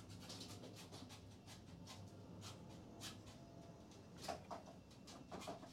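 Faint handling clicks and taps against a board on a wall, with a sharper knock about four seconds in. Near the end come a few short pulses of a cordless drill-driver starting to drive a screw.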